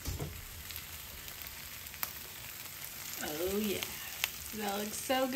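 Hot metal sheet pan of cheese-topped zucchini and turkey bites, fresh from the oven, sizzling with a faint crackle. From about three seconds in come a few short, gliding vocal sounds, the loudest near the end.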